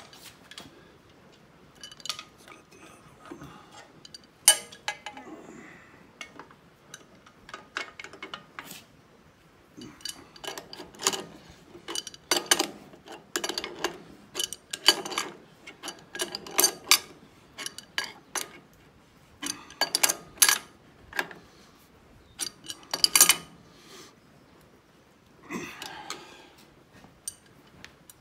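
Steel hand wrenches clinking and clicking against the steel nuts, bolts and bracket of a hydraulic thumb mount as the bolts are tightened down. The clicks and clanks come in irregular clusters of quick strokes.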